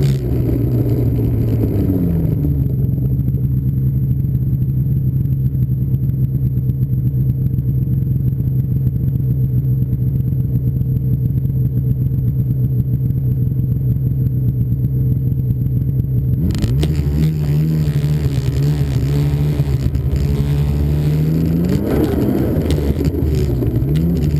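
Snowmobile engine running while riding: the revs drop about two seconds in and hold steady, then the sound changes abruptly and the engine revs up and back down near the end.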